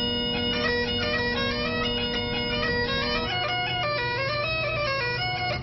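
Bagpipes playing a tune over a steady drone. It is the sound the house's 'pipes' are making: the strange noise is bagpipe music. About three seconds in the drone drops lower.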